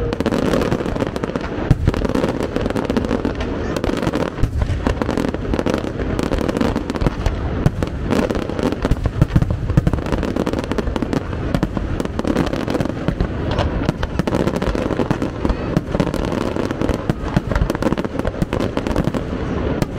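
Fireworks display: aerial shells bursting in a dense, unbroken barrage of bangs and crackling.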